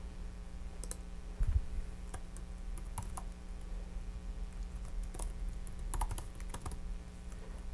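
Computer keyboard being typed on, scattered key clicks as an email address is entered, with a dull knock about one and a half seconds in, over a steady low hum.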